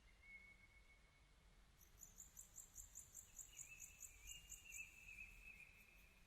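Faint outdoor ambience: an insect chirping in a rapid pulsed train, about four pulses a second, starting about two seconds in, over thin high whistling calls from birds.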